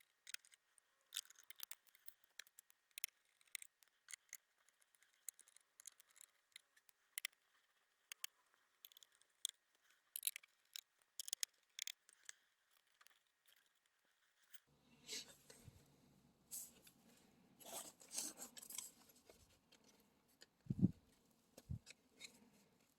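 Small sharp clicks and ticks of tools and metal and plastic parts being handled while a graphics card's stock cooler is taken apart, scattered for the first half. About halfway through, denser rustling and handling noise takes over, with a couple of dull thumps near the end.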